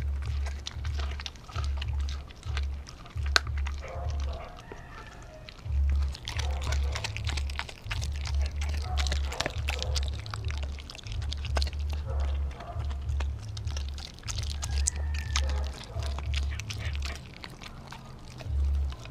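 A dog gnawing and chewing a raw turkey neck held out to it: wet smacking and slurping with frequent sharp crunches and clicks of teeth on meat and bone. A low pulsing bass runs underneath.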